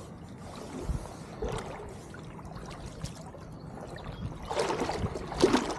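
Water lapping and sloshing, with a louder splash near the end.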